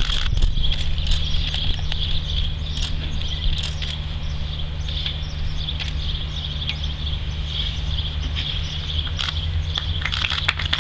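Insects chirring outdoors: a steady high buzz with a fast pulsing texture, over a low steady hum and a few scattered clicks.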